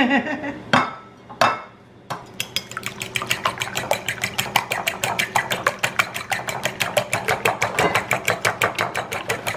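Two sharp knocks of an egg being cracked on a ceramic bowl, then a fork beating raw eggs in the bowl, clicking against the bowl about six times a second.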